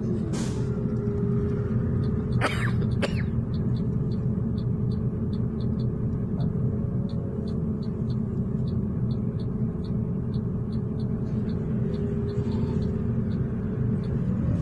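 City bus engine and drivetrain heard from inside the cabin: a steady low rumble under a whine that glides in pitch at the start and near the end. There are two short hisses in the first three seconds. A light ticking of about three a second runs through most of it.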